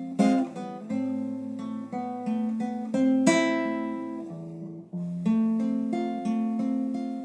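Solo acoustic guitar playing an instrumental passage of a Latin American trova song, with strummed chords and plucked notes. There is a hard strum about three seconds in and a brief break near five seconds.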